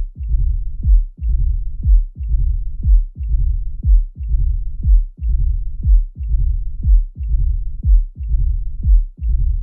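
Auscultated heartbeat at about one beat a second, each beat a sharp low thud followed by a rough murmur that fills most of the cycle until the next beat: a heart murmur.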